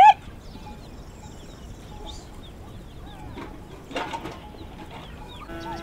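Farmyard sounds: a loud animal call ends right at the start, small birds chirp faintly throughout, and there is a short knock about four seconds in. Near the end a livestock bleat begins.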